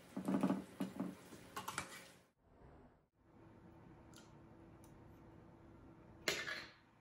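Metal utensils scraping and clinking against serving dishes: a cluster of clinks in the first two seconds, then one louder clink near the end.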